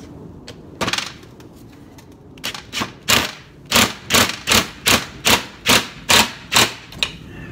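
Cordless impact driver with a socket on an extension, run in short bursts. There is one burst about a second in, then about eleven more at roughly two a second, as it tightens the bolt through a Timbren rubber bump-stop stack.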